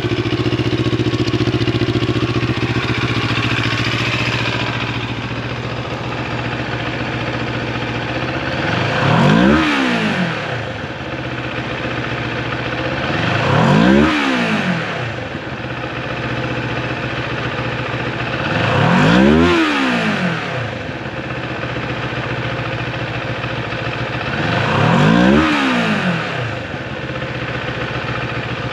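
Moto Morini Seiemmezzo STR's parallel-twin engine idling, blipped four times. Each rev swings up and falls back to idle over about two seconds, with a few seconds of idle between them.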